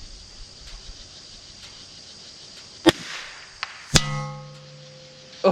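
A .22LR shot from a Vudoo V22 bolt-action rifle: a sharp crack about 3 s in. About a second later comes a louder metallic strike that rings on with several steady tones before fading. The ringing is a bullet hitting a steel target plate.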